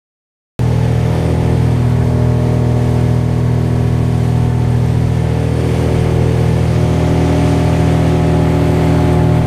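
Outboard motor of a small fishing boat running steadily under way. The sound cuts in suddenly about half a second in.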